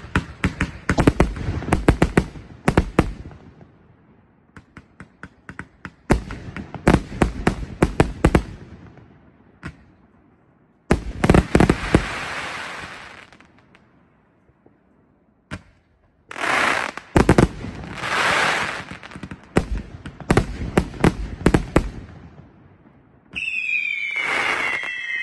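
Firework cake firing several volleys of rapid shots with short pauses between, some volleys followed by a spreading hiss. Near the end several whistles sound together, falling slowly in pitch.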